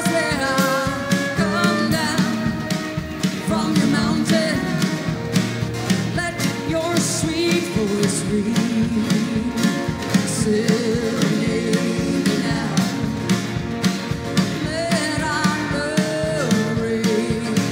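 Live country band playing, with a woman singing lead over acoustic and electric guitars, fiddle, plucked upright bass and drums keeping a steady beat.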